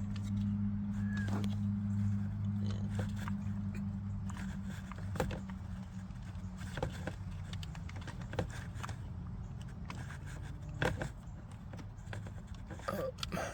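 Scattered light clicks and knocks of plastic parts being handled and snapped into place as a new clock spring is fitted to a car's steering column, over a steady low hum that weakens after the first few seconds.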